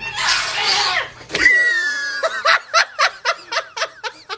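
A breathy hiss lasting about a second. After a click, a rhythmic run of laughter follows, about four short laughs a second.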